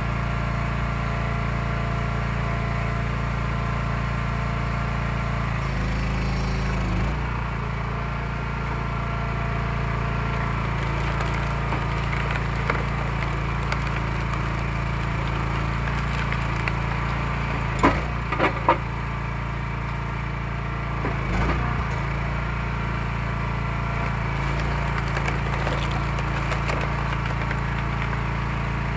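Eastonmade 12/22 hydraulic log splitter running steadily on its engine, its tone sagging briefly about six seconds in, as rounds are pushed through the wedge. Wood splits and splinters with a few sharp cracks about two-thirds of the way through.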